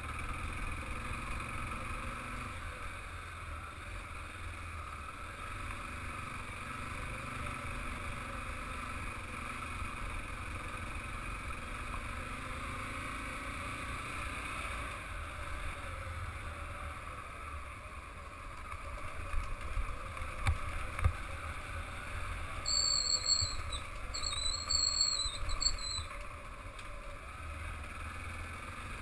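Motorcycle engine running steadily on the move over a dirt track, with a low rumble throughout. Louder jolts and knocks come about two-thirds of the way through, and a high squeal sounds twice near the end.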